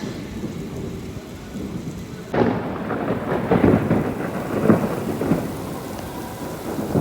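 Steady rain falling, with a sudden clap of thunder about two and a half seconds in that rumbles on in surges for about three seconds.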